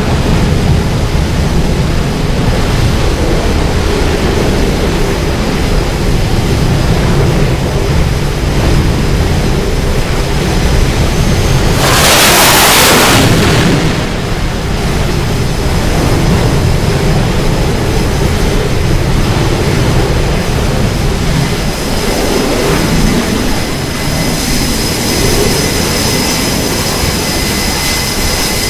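Carrier jet engines running at high power on the flight deck, a loud steady rumble and hiss. About twelve seconds in, a steam catapult launch sends a jet off the bow with a sharp blast lasting a second or two, and near the end a thin high whine from jet engines comes in.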